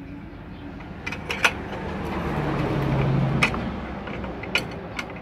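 A vehicle passing by, swelling to a peak and fading over about two seconds. A few sharp metallic clicks come from steel wire rod being handled in a homemade stirrup-bending jig.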